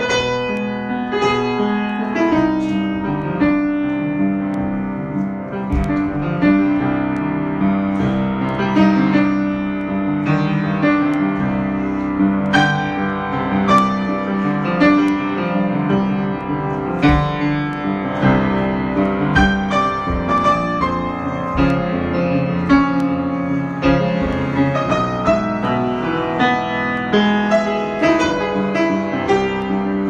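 Solo grand piano playing an improvisation: held low notes under a steady stream of chords and runs higher up.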